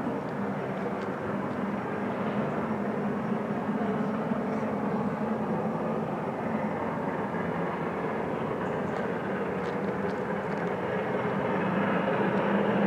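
Steam locomotive Jubilee class 45699 Galatea, a three-cylinder 4-6-0, working hard with a train in the distance, heard as a steady exhaust noise that grows louder over the last couple of seconds as it approaches.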